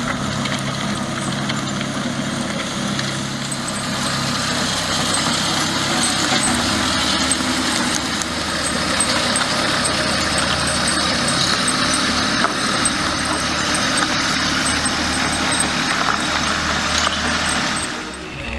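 A small log tractor's engine running steadily, with a dense mechanical clatter over it. The engine note shifts slightly about six seconds in, and the sound cuts off just before the end.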